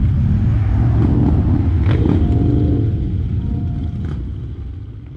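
A pack of heavy cruiser motorcycles rumbling along the road together, the sound fading away over the last couple of seconds.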